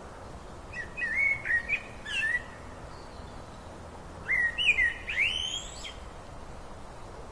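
A songbird singing two short phrases of whistled, sliding notes, a couple of seconds apart, over a steady rush of flowing river water.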